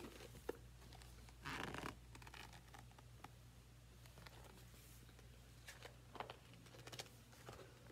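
Near silence with a low steady hum, broken by a short rustle of a picture book's paper pages being handled about one and a half seconds in, and a few faint clicks and taps later on.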